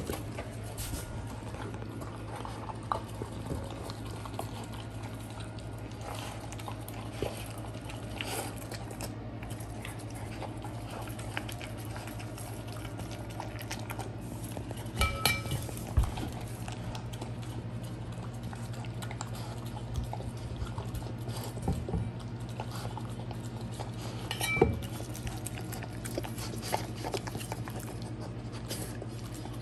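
Rottweiler puppy eating and licking from a stainless steel Yeti dog bowl: many small clicks and clinks of tongue and teeth on the metal. Louder clinks make the bowl ring briefly about halfway through and again near 25 seconds, over a steady low hum.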